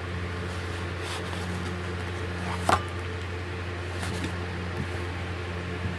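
Oracle cards being handled as one card is drawn from the deck: a few soft card slides and one sharper snap about halfway through, over a steady low hum.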